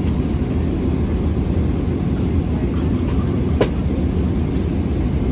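Steady low rumble of an airliner's engines and airflow heard inside the passenger cabin, with a single sharp click about three and a half seconds in.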